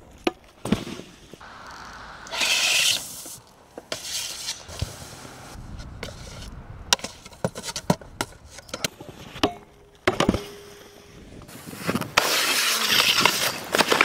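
Snowboard hitting and scraping on rails, concrete and snow: a string of sharp knocks and clacks, with a loud sliding hiss of the board over snow about two to three seconds in and again near the end.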